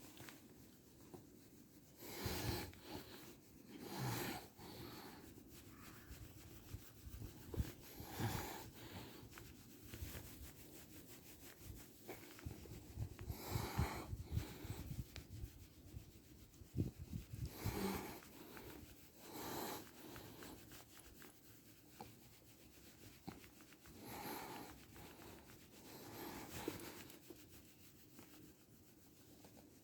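A hand stroking a shedding Shiba Inu's coat: faint brushing strokes on the fur, one every couple of seconds, loosening moulting undercoat.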